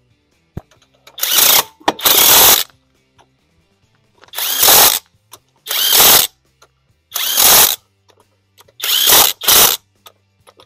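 AlloyMan 20 V half-inch cordless impact wrench on its highest setting, hammering lug nuts tight through an 80 ft-lb torque stick. It comes in seven short bursts of about half a second to a second each, with brief gaps as the socket moves from nut to nut. The torque stick keeps the nuts from being over-tightened.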